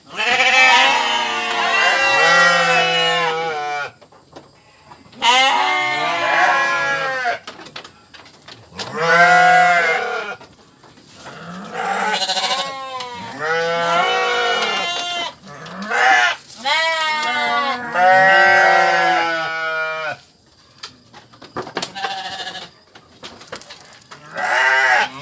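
Sheep bleating repeatedly, a run of long, wavering baas, some overlapping, with short pauses between them.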